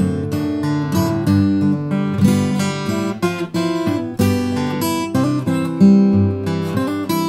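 Solo steel-string acoustic guitar played fingerstyle: bass notes and a melody line plucked together in a steady run of notes.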